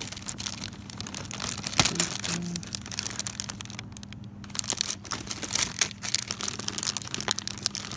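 Plastic-bagged keychain packages and their card backings crinkling and rustling as they are handled and flipped through, in a dense run of irregular crackles.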